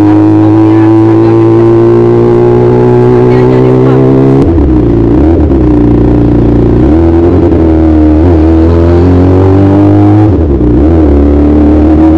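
Kawasaki ZX25R's 250 cc inline-four running at high revs while ridden, its note climbing slowly. About four seconds in the pitch starts to drop and climb back several times.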